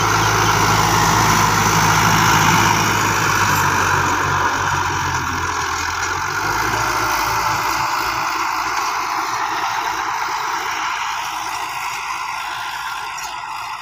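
Farm tractor's diesel engine running steadily as it pulls a rotary tiller through the soil, with a dense churning noise over the engine hum. It grows fainter as the tractor moves away, the low engine hum dropping off about halfway through.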